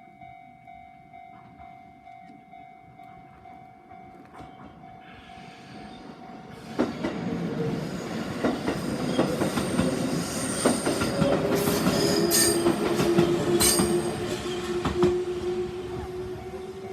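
Level-crossing alarm ringing in steady, evenly repeated dings. About seven seconds in, a JR 373 series three-car electric train arrives and runs over the crossing, its wheels clacking over the rail joints. It is loudest a few seconds before the end, then fades while the alarm keeps ringing.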